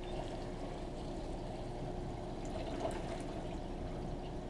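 Water pouring steadily out of a hose attached to a laundry faucet, draining the last pressure out of the shut-off supply line.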